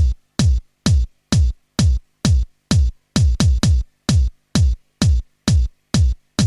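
Electronic dance music: a deep kick drum beating on its own, about two hits a second, each hit dropping in pitch.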